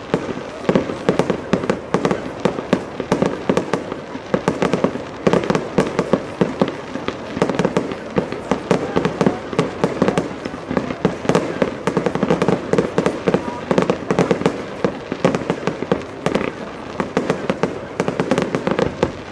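Aerial fireworks display: shells bursting and crackling in a dense barrage, several bangs a second without a break.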